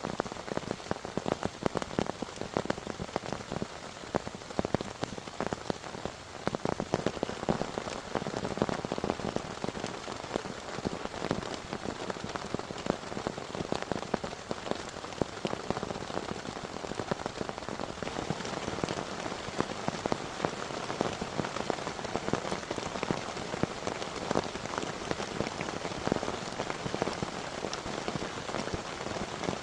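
Heavy rain falling steadily, with many sharp individual drop impacts close by.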